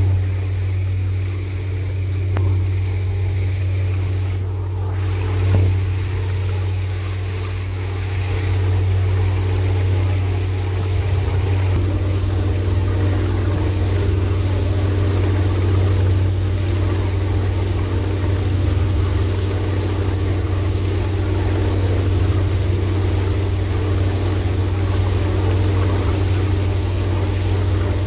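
Speedboat engine running steadily at speed, a deep, even drone, with the rushing of the churned wake behind the boat.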